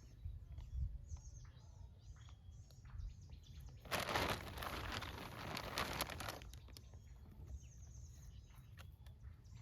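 Small birds chirping again and again over a low rumble, with a loud rushing noise from about four to six and a half seconds in.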